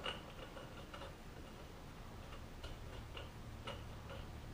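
Light metallic ticks at an uneven pace, about one every half second, as a threaded steel plug is worked into the bottom of an oiled BSA Victor fork leg, trying to catch its cleaned-up threads.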